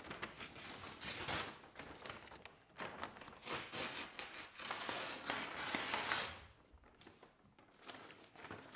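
A sheet of paper crinkling and rustling as it is handled and broken in half by hand, loudest from about three and a half seconds in, then dying away about six seconds in.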